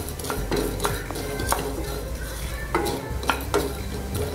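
Wooden spatula stirring sunflower seeds as they dry-roast in a nonstick kadai: scraping against the pan with irregular clicks and taps as the seeds are pushed around.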